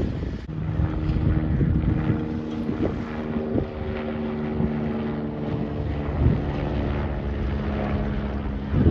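Helicopter flying overhead: a steady drone of rotor and engine, with wind rumble on the microphone.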